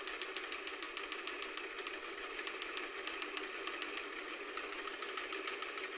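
Rapid, even mechanical clattering, many clicks a second, thin-sounding with almost no bass, running steadily without a break.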